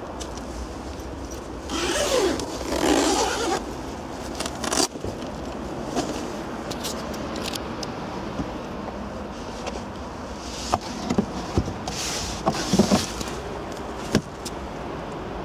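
Rustling and scraping of fabric-covered boot trim being handled in a Skoda Octavia II's boot, with a cluster of sharp clicks and knocks near the end as the carpeted boot floor panel is lifted off the spare wheel well.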